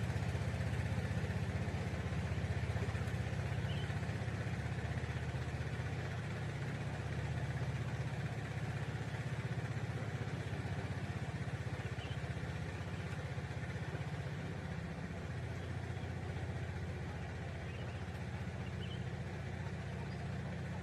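Small engine running steadily at an unchanging speed, a low hum with no revving.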